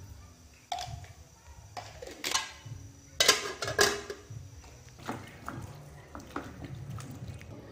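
Aluminium cooking pot and lid clanking as they are handled: a few metal clinks, then the lid clattering onto the pot, loudest about three to four seconds in. Softer taps and knocks follow.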